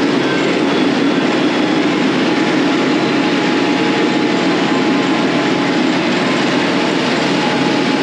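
Compact tractor's engine running steadily while the tractor drives across a field, heard close from the operator's seat.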